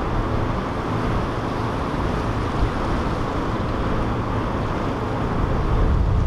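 Boat engines running steadily over the rush of water, with wind on the microphone; the level rises slightly near the end.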